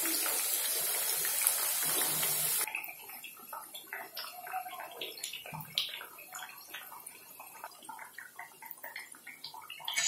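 Alu vadi (colocasia leaf rolls) deep-frying in hot oil: a loud, steady sizzle that drops abruptly about two and a half seconds in to a much fainter sizzle with scattered crackles and pops.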